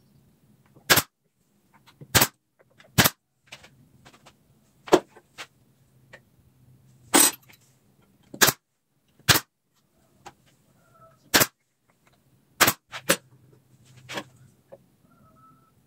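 About a dozen sharp, loud impacts at irregular intervals of roughly a second, with a faint low hum between some of them.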